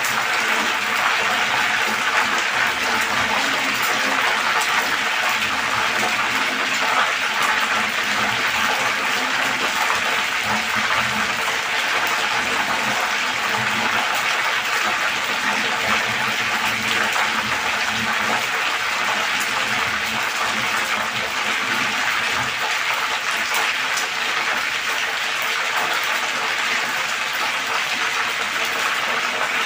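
Talakitok (trevally) fish deep-frying in a wok of hot oil, with a steady, even sizzle that does not let up.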